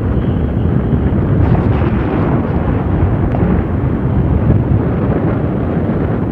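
Jet aircraft engines producing a loud, steady roar, heavy in the low end.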